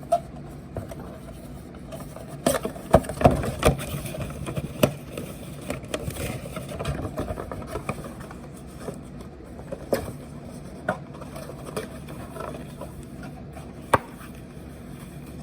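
A smoke detector's retail box and its contents being handled: scattered knocks and clicks with some rustling, over a faint steady low hum.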